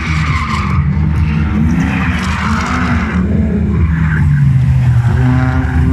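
Drift cars running on the track: engines revving up and down, with tyre squeal and skidding as the cars slide, loudest near the start and again about two seconds in.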